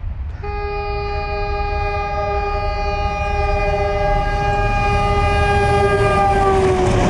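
Pakistan Railways PHA-20 diesel-electric locomotive sounding its multi-note air horn in one long blast as it runs through the station at speed, the chord dropping in pitch near the end as the locomotive passes, over the growing rumble of the engine and train.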